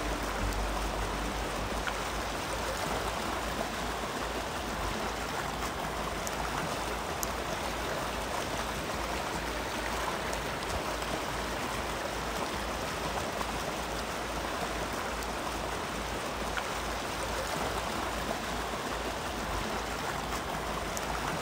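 Small river running steadily over shallow rapids: an even rush of flowing water.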